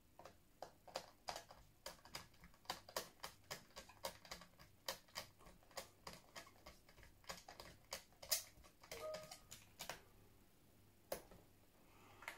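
Irregular small clicks and ticks, about two to three a second, of a screwdriver driving the bottom-cover screws back into a plastic Dell Inspiron 3584 laptop case. They stop about ten seconds in, with one last click near the end.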